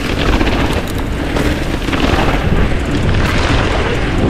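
Wind buffeting the microphone in a steady heavy rumble as a mountain bike is ridden fast, with scattered rattles and knocks from the bike over rough ground.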